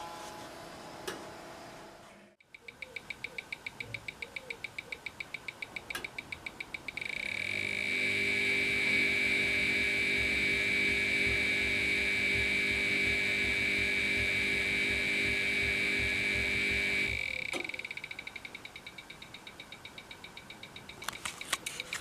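Audio signal of a Gigahertz ME3851A magnetic-field meter: rapid electronic ticking that merges into a steady high-pitched tone with a lower buzz underneath for about ten seconds, then drops back to fainter ticking. The sound tracks the magnetic field the meter picks up from the running washing machine, reading around 112 nanotesla.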